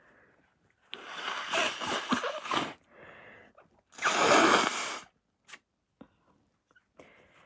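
A person blowing a snotty nose into a tissue twice while sick: a long blow about a second in that breaks up near its end, then a shorter, louder blow about four seconds in.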